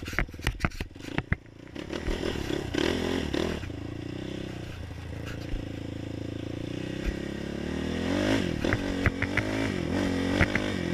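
450 quad (ATV) engine running while ridden, with a cluster of sharp clicks and knocks in the first second or so. About two-thirds of the way in, the pitch rises and wavers up and down as the throttle is worked.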